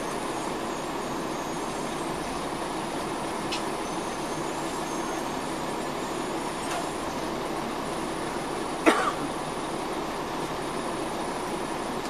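Steady cabin drone of a 2004 MCI D4500CL coach under way, with its Caterpillar C13 engine and road noise running evenly. A single sharp knock sounds about nine seconds in.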